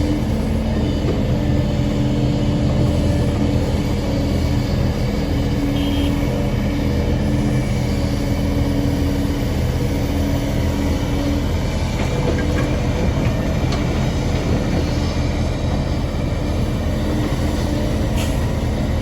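Heavy diesel engine of a Kobelco excavator running steadily at working speed with a low drone. One of its higher tones drops out a little past halfway.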